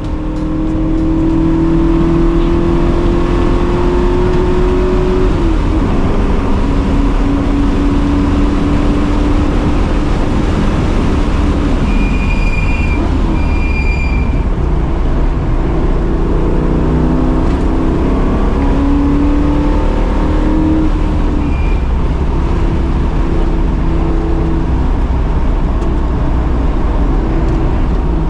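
Pontiac Firebird's V8 at race pace on track, the engine pitch climbing hard under full throttle for about five seconds, then dropping sharply and rising and falling through the corners, over steady road and wind noise. Two short high tones sound about halfway through, and another a little later.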